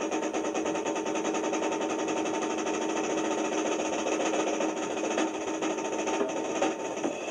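Lo-fi old recording of a drum solo: a drum kit played in a rapid, continuous roll of fast, even strokes, with the drums ringing under it.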